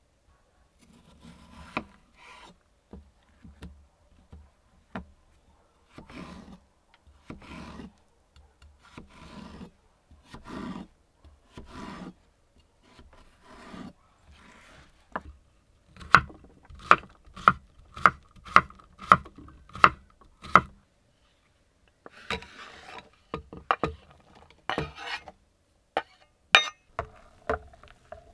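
A chef's knife cutting cucumber on a wooden cutting board. Slower, softer slicing strokes come first, then a run of about nine even chops at two a second, then irregular knocks and scraping as the cut cucumber is scraped off the board.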